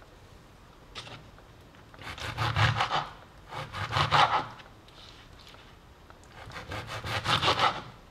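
Serrated kitchen knife sawing through a lemon with its peel on, the blade rasping back and forth and scraping the wooden cutting board, in three bouts of quick strokes.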